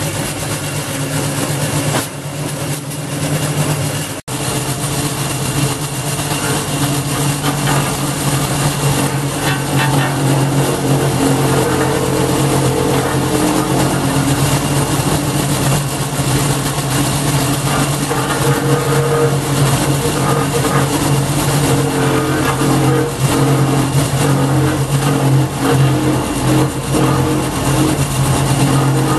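Wood chipper's 5.5 HP Briggs and Stratton single-cylinder engine running loud and steady, with a brief drop-out about four seconds in. From about nine seconds a rougher, crackly noise rides over the engine hum.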